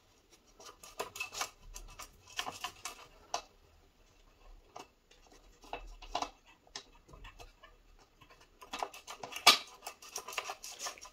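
Electric scooter wiring being pushed and worked by hand through an opening in the deck: irregular rustles, scrapes and small clicks of cable against the deck frame, with one louder click near the end.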